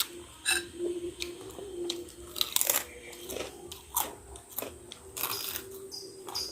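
Close-up mukbang eating sounds: chewing and biting into bakso meatballs, a string of short wet mouth clicks, with a steady faint hum underneath.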